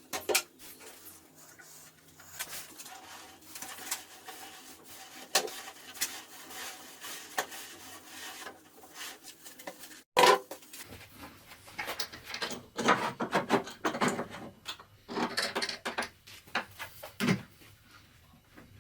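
Wooden pieces handled, knocked and slid against each other: a string of light knocks and rubs, with a sharp, loud knock about ten seconds in and a busier run of knocks and scrapes after it.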